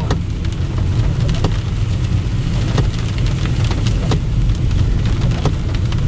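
Inside a car driving slowly through a flooded street in a heavy downpour: a steady low rumble of engine, tyres and water under the car, with rain hitting the windscreen and roof in scattered sharp ticks.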